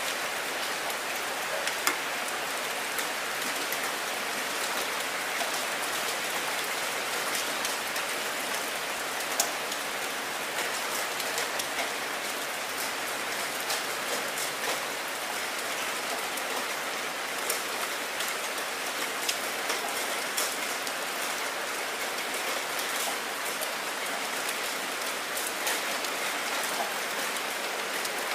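Heavy rain splashing down onto wet ground: a steady hiss with many scattered sharp ticks of individual drops hitting.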